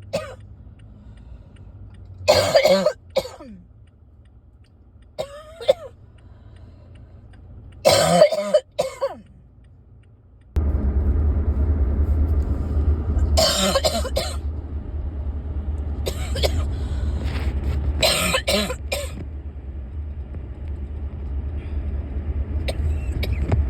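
A person coughing in about six short fits: a lingering cough they cannot shake. About ten seconds in, a steady low rumble starts abruptly and carries on under the later coughs.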